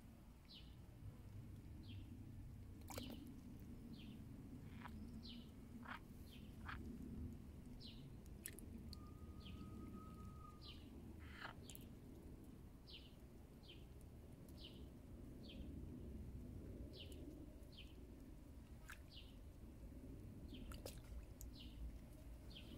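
Faint small-bird chirps: short high calls that drop in pitch, repeated at uneven intervals of about a second, with a few soft clicks and one brief steady whistle about ten seconds in, over a low background rumble.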